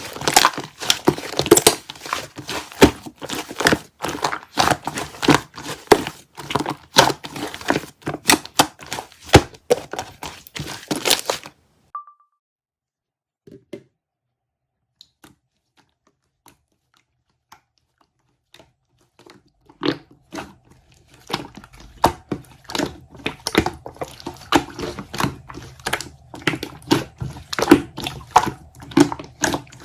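Slime being squished and pressed by hand, giving rapid crackling clicks and pops. It stops for several seconds around the middle, then starts again.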